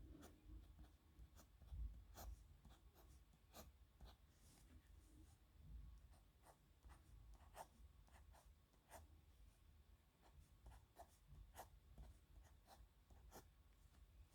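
Pen writing on paper, faint: short scratchy strokes of the tip across the page at an irregular pace, one to three a second.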